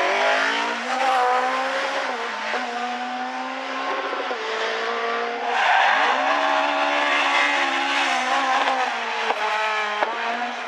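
Mk2 Ford Escort rally car engine running hard at high revs, its note holding, rising and falling as it is driven through the stage, with the pitch jumping abruptly several times.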